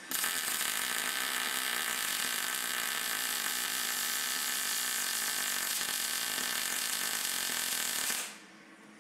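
MIG welder arc running as a captive nut is welded onto a steel mounting plate. It is one continuous steady arc noise that stops about eight seconds in.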